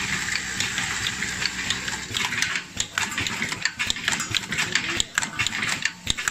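No. 3 nylon zipper slider mounting machine running: a steady hiss, with rapid, irregular mechanical clicking and clacking from about halfway through as it works.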